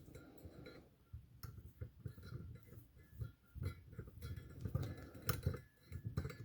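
Irregular small clicks and light knocks of hands handling a freshly oil-filled RC car shock absorber as its cap is screwed onto the shock body.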